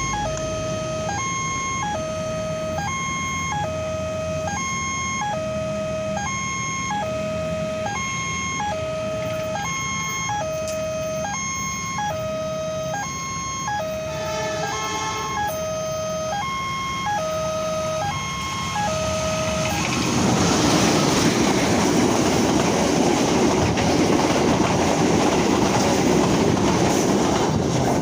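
Railway level crossing warning siren sounding a two-tone signal that switches evenly between a low and a high tone, a full cycle about every one and a half seconds. About twenty seconds in, the louder, rushing noise of a passing train takes over and the siren is no longer heard.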